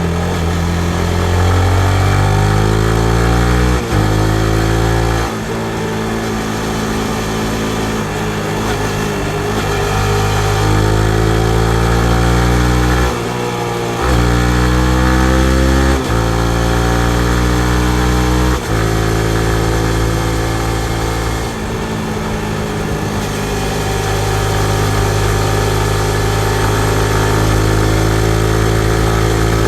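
2019 Yamaha MT-15's single-cylinder engine accelerating through the gears. Its pitch climbs in each gear and drops briefly at each upshift, several times in the first twenty seconds. After that it runs at a steadier speed, rising and falling a little.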